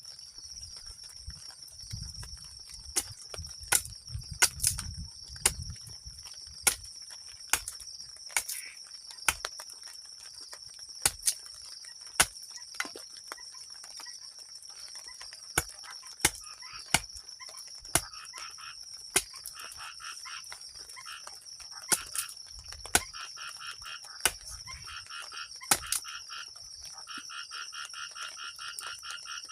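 Steady high-pitched insect chorus, with sharp irregular taps about once or twice a second. From about halfway on, a rapidly pulsed trilling call repeats in short runs, and a low rumble comes twice, once near the start and once near the end.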